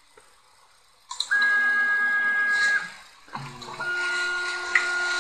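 Stepper-driven axes of a small four-axis CNC jewellery mill making rapid positioning moves to the work zero. A steady high whine starts about a second in and stops near three seconds. Shortly after, a second steady, slightly lower whine begins as the rotary axis and slides travel.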